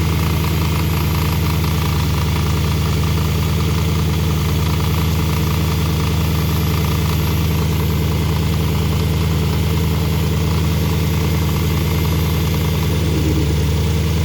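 Porsche Panamera S engine idling steadily with an intermittent rumbling knock from under the hood.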